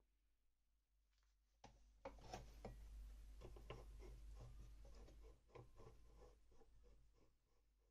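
Hands turning the spindle of a small JETCO bench lathe and unscrewing the fitting on its nose: light metal rubbing with small clicks, then a run of faint, evenly spaced ticks that slows down.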